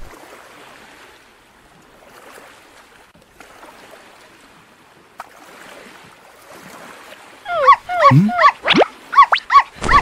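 Faint water ambience, then about seven and a half seconds in a dog yelping and whining in a quick run of loud, high cries that rise and fall in pitch.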